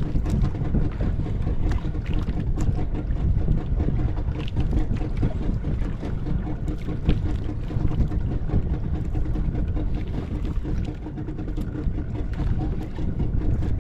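A small outrigger fishing boat's engine running steadily, a constant hum over a low rumble.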